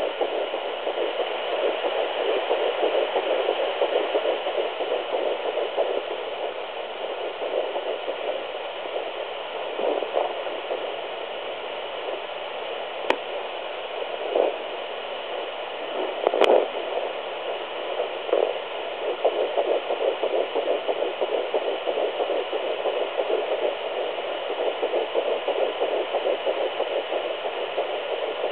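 Sonoline B 3 MHz fetal doppler picking up an 8-week-5-day fetus's heartbeat as a rapid, hissy whooshing pulse. It weakens and turns patchy around the middle, with a few thumps and two sharp clicks, then comes back strongly.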